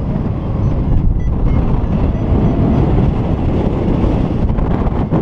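Airflow buffeting the microphone of a paraglider in flight: a steady, heavy rumble of wind noise, with faint short high beeps now and then.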